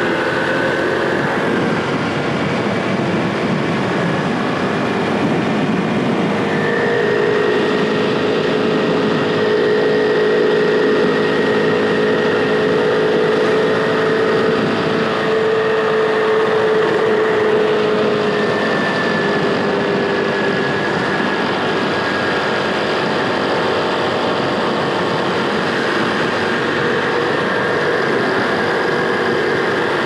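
Small scooter-type motorcycle's engine running at a steady cruise. Its hum drifts slightly up and down in pitch over a constant rush of wind and road noise.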